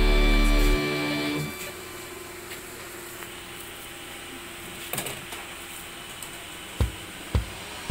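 Background music fading out, then the steady hum of a manual shrink chamber running. Near the end come a few sharp knocks as its hood and handle are moved over the grid.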